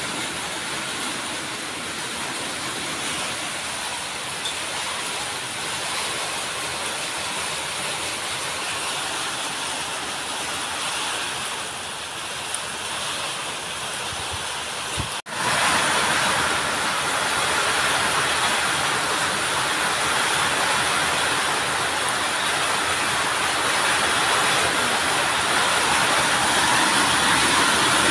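Steady heavy rain, an even hiss of downpour. It cuts out for an instant about halfway through and comes back louder.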